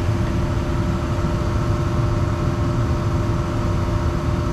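Gas furnace running with its burners lit and blower fan on: a steady low rumble with a constant hum over it.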